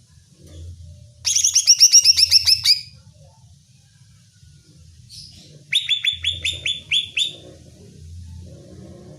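Cucak ijo (leafbird) singing two loud, fast phrases of repeated down-slurred whistled notes, about ten notes a second. The first phrase starts about a second in and the second comes about three seconds later. This is the fierce, insistent song used as a stimulus to provoke another cucak ijo into singing.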